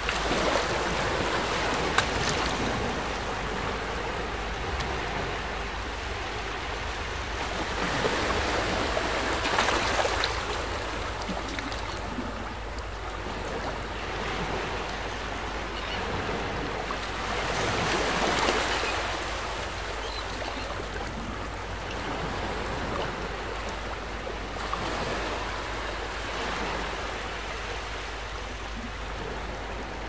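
Sea surf washing in continuously, swelling into louder breaking waves about every nine seconds. There is a brief sharp tick about two seconds in.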